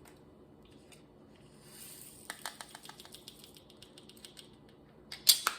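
Diamond-painting resin drills poured from a plastic bag into a small plastic container: a soft rustle, then a run of rapid small clicks as the drills fall in, and a louder clatter a little past five seconds in.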